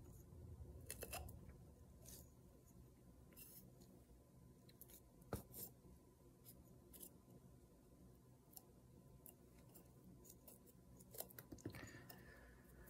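Near silence over a faint steady hum, broken by scattered faint clicks and rustles of fingers handling a small paper-covered glass bottle, one click about five seconds in a little louder than the rest.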